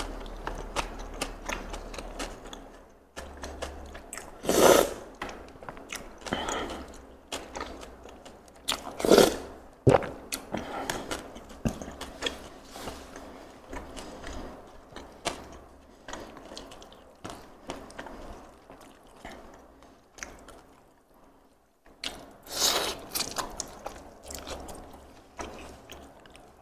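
Close-up eating sounds: fingers picking through crispy fried chicken and crunchy anchovy sambal, giving many small crackles and clicks, with three louder crackling crunches about five, nine and twenty-three seconds in, and chewing.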